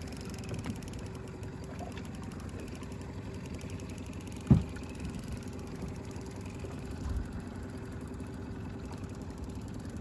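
Small outboard kicker motor running steadily at idle, a low drone with a held tone. A single sharp knock about halfway through and a softer thump a little later.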